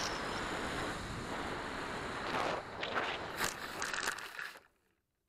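Wind rushing over the small RC plane's onboard camera microphone, then several brushing knocks as the Volantex Firstar 2000 touches down and skids through long grass. The sound cuts off abruptly about four and a half seconds in.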